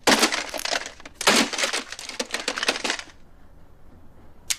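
Two bursts of crashing and breaking, something hard being smashed, the second burst longer; a single sharp click near the end.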